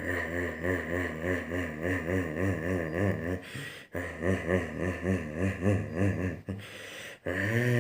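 A person's voice imitating the snoring ('ngorok') engine and exhaust of a Mitsubishi BM: a low, throaty hum that wobbles in pitch and pulses about twice a second. It breaks off briefly just before four seconds in and twice near the end, then settles into a steadier hum.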